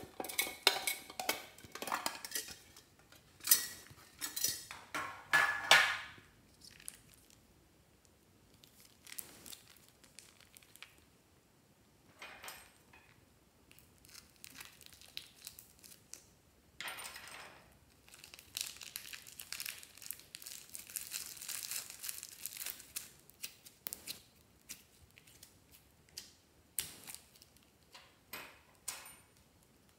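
Hands handling plastic slime packaging: a run of clicks, taps and crinkles in the first six seconds as a plastic toy case is opened, then scattered taps. About seventeen seconds in comes a sharp crinkle as a plastic bag of glitter slime is cut open, followed by several seconds of crinkling plastic as the bag is squeezed out, and a few clicks near the end.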